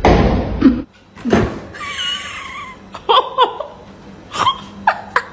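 A burst of noise in the first second, then a domestic cat meowing: one wavering call about two seconds in, followed by several short calls.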